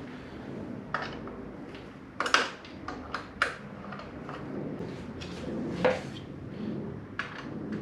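Irregular metallic clinks and knocks of hand tools and bolts against motorcycle rally-tower parts, the loudest a double knock a little over two seconds in.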